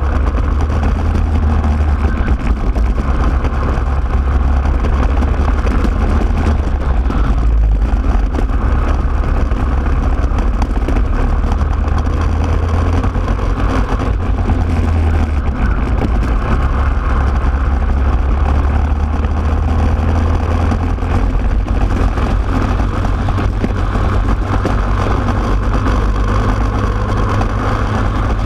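Racing kart engine running hard at speed, heard close up from a camera mounted on the kart itself; loud and steady throughout.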